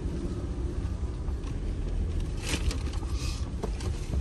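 Jeep crawling along a wooded dirt trail: steady low engine and tyre rumble, with a few short crackles and scrapes around two and a half to three and a half seconds in.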